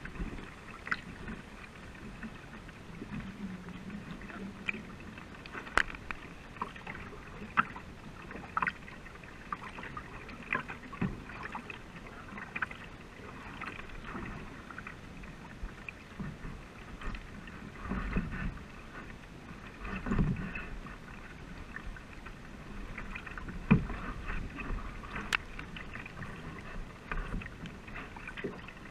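Water rushing and splashing along the hull of a racing canoe under paddle, with scattered sharp splashes and knocks from the paddle strokes at irregular moments.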